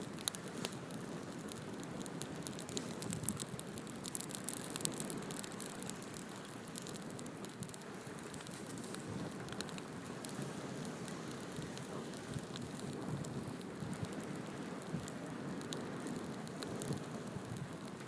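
Open fire crackling and popping over a steady low rush, with the pops thickest about four to five seconds in.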